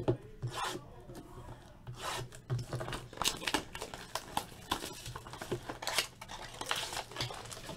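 Cardboard packaging of a Topps Triple Threads football card box being worked open by hand: the sleeved inner box slid and pulled apart in quick, irregular rubbing and scraping strokes, busiest in the middle of the stretch.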